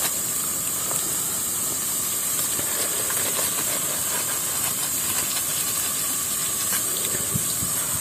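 Fern greens cooking in a wok, a steady sizzling hiss with a few faint clicks.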